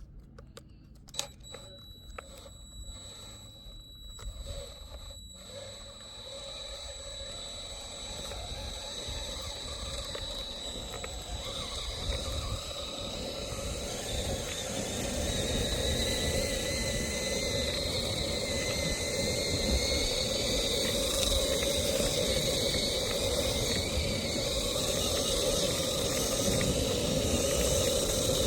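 Cordless DeWalt drill motor whining steadily as it drives a longboard's rear wheel, with a few clicks in the first seconds. Rolling and wind noise grow steadily louder as the board gathers speed.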